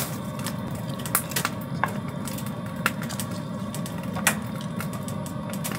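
Chopped vegetables frying in a stainless steel pot on a wood stove, with scattered crackling pops over a steady low noise as a wooden spoon stirs them.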